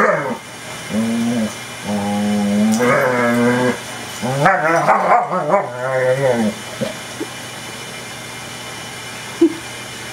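Dogs in rough play, a German Shepherd and a golden retriever puppy: three bouts of long, wavering growling moans in the first six seconds or so, then quiet with one short knock near the end.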